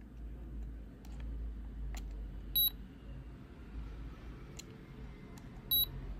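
Olympus Camedia C-40 Zoom digital camera giving two short high beeps, about three seconds apart, as its menu buttons are pressed, with faint clicks of the arrow-pad buttons in between.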